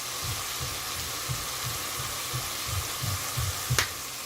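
Onion and tomato masala sizzling as it fries in oil in a cooking pot, with a spoon stirring it in steady strokes about three a second. A sharp knock sounds near the end.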